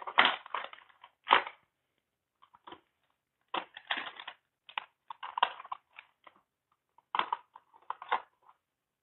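Irregular rustling and crackling handling noise in short clusters as a hand-held plastic timer box is moved and turned about.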